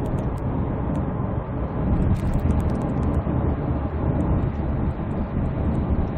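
In-cabin driving noise of a 2012 SsangYong Korando Sports pickup at cruising speed: a steady low rumble of engine and tyres while it pulls up a slight incline.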